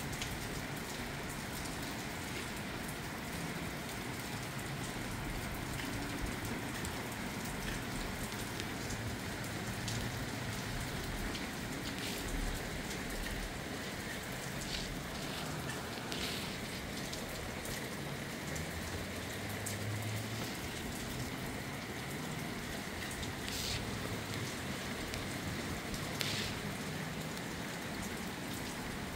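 Steady rain falling, an even hiss throughout, with a few sharp ticks of single drops striking close by.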